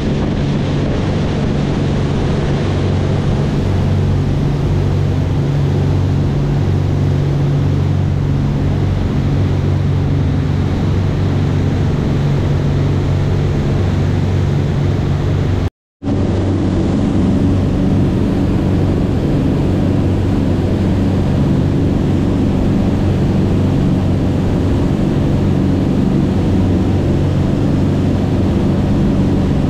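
Twin engines of a Sea Ray 400 Sundancer cruiser running steadily at speed, a low, even drone over the rush of the wake water. The sound cuts out for a moment about halfway through, then carries on unchanged.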